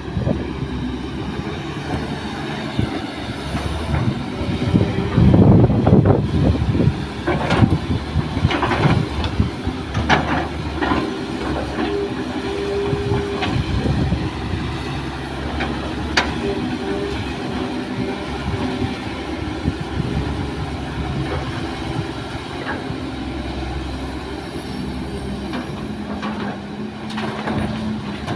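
Kobelco excavator's diesel engine running steadily under load, with a stretch of knocks and rattling about five to eleven seconds in and a few sharp clanks after.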